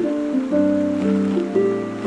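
Background instrumental music: a slow melody of held notes that change about every half second.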